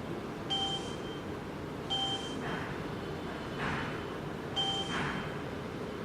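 Short key-press beeps from a SEC-E9 key cutting machine's touchscreen as a key code is typed in: three brief beeps spaced unevenly, with fainter short hissy sounds between them over a steady low hum.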